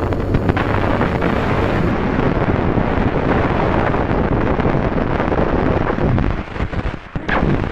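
Loud, steady roaring noise with no tone or rhythm. It drops away briefly near the end and comes back with a sharp click.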